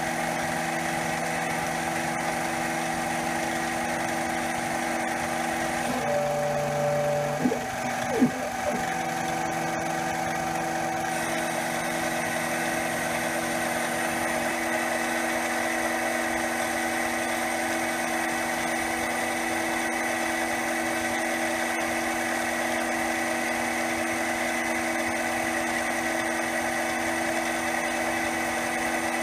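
CNC mini lathe running steadily, its spindle and stepper-driven feed making a constant multi-tone whine while a two-flute end mill bores into aluminum. About six seconds in the tone changes, and at seven to nine seconds a brief up-and-down whine with two sharp knocks marks a feed move, before the steady machining hum resumes with a slightly different, higher tone.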